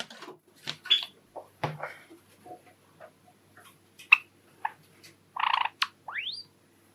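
Java sparrows in their cage: scattered short calls mixed with small clicks and taps. Near the end comes a short harsh burst, then a quick upward-sweeping call.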